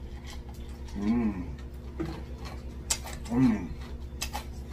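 A person drinking cold water from a bottle, with two audible throaty swallows about two seconds apart, over a steady low hum and faint ticking.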